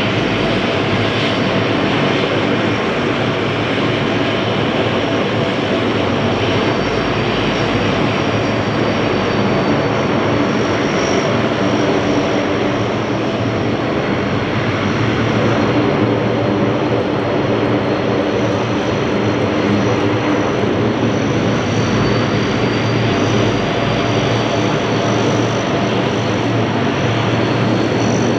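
Lockheed C-130 Hercules four-engine turboprops taxiing past close together, a steady loud propeller drone with a constant high turbine whine on top.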